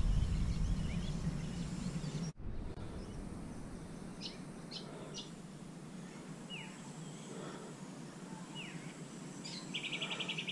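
Wild birds calling over quiet riverside ambience: a few short high chirps, two falling whistled notes, and a fast rattling trill near the end. A low rumble fills the first two seconds and cuts off sharply.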